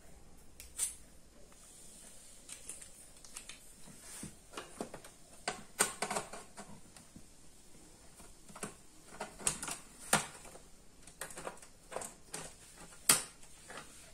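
Irregular small clicks and taps of a screwdriver and loose parts against the open sheet-metal case of a satellite set-top box as its fastenings are worked loose, with one sharper tap near the end.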